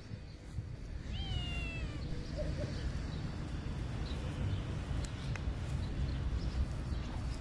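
Domestic cat meowing once, about a second in: a single drawn-out meow of about a second that rises briefly, then slides slightly down in pitch.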